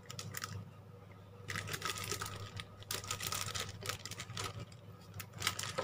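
Clear plastic parts bag crinkling in the hands as it is turned over, with irregular crackles that grow busier after about a second and a half.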